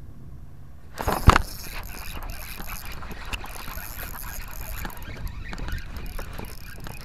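Close handling noise of a fishing rod and spinning reel: a sharp knock about a second in, then steady rustling and scraping with many quick clicks.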